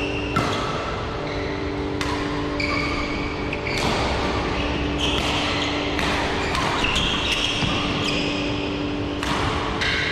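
Badminton rally: several sharp racket strikes on the shuttlecock, a second or so apart, mixed with short squeaks of court shoes on the floor and a steady low hum.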